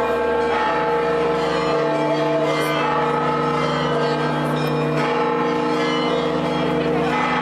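Church bells ringing, their strokes overlapping into a steady, continuous peal.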